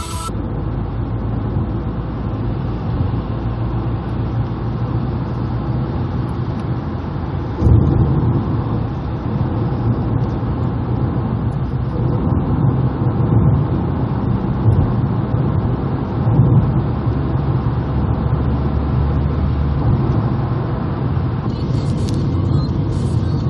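Road and engine noise of a car being driven, heard from inside the cabin: a steady low rumble that gets louder about eight seconds in.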